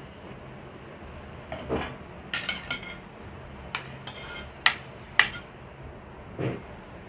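Metal spoons clinking and scraping against plates and a serving pot as food is served and eaten. A scattering of sharp clinks includes two loudest ones about half a second apart in the middle, and a duller knock comes near the end.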